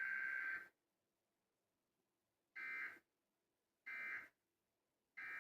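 Emergency Alert System tones from a TV broadcast: a steady electronic alert tone cuts off about two-thirds of a second in, then three short data bursts follow about 1.3 seconds apart, with silence between them.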